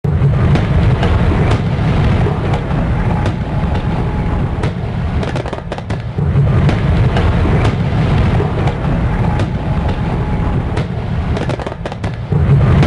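Fireworks sound effect: a continuous low rumble of booms, thick with crackles and pops. It steps up in loudness about six seconds in and again near the end.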